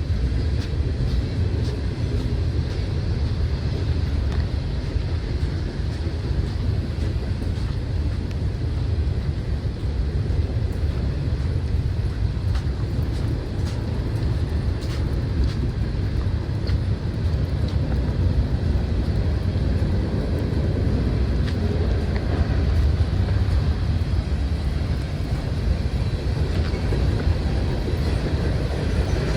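Freight train rumbling steadily past, a continuous low rumble of wheels on rail with a few faint clicks.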